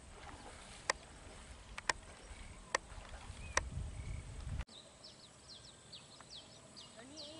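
Quiet outdoor wetland sound. At first there is a low rumble with a sharp tick about once a second. After an abrupt cut comes a run of many quick, high, falling bird chirps.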